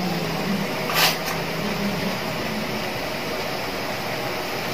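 Steady rushing background noise, with one short hiss about a second in.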